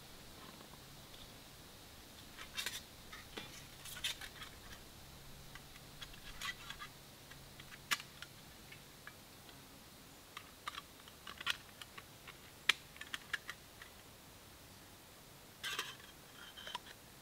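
Irregular sharp clicks and short rattles of small camp cooking gear being handled and fitted together by hand.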